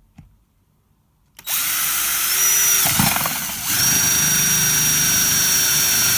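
Electric hammer drill starting about a second and a half in, spinning up with a rising whine and then running steadily, with a brief dip and disturbance about three seconds in, while it bores a hole through the plastic casing of a Now TV box.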